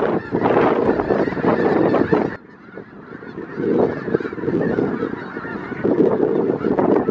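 A huge flock of snow geese calling all at once, a dense din of overlapping honks. About two and a half seconds in it drops off suddenly and comes back fainter, then swells again.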